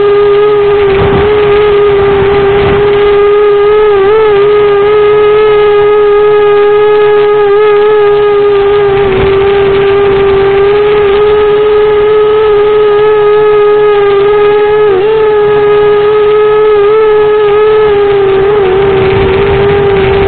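Eachine Racer 250 quadcopter's brushless motors and propellers whining at a steady pitch, with small wobbles in pitch now and then.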